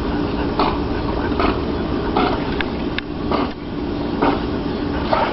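A dog paddling hard in pool water, splashing in short bursts about once or twice a second over a steady low rumble and hum.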